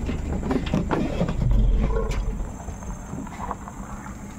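A vehicle engine running with a deep, steady rumble that swells louder for about a second near the middle.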